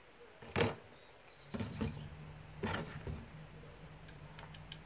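Short scrapes and clicks of hands and a small tool on plastic as a rubber anti-vibration mount is worked into a Husqvarna chainsaw's plastic handle housing, with a few faint ticks near the end. A low steady hum starts about one and a half seconds in.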